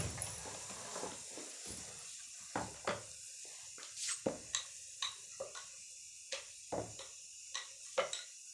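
A thump as a plastic stool is set down on the floor, then a rolling pin knocking and clacking on a round rolling board as roti dough is rolled out, a sharp knock every half second to a second.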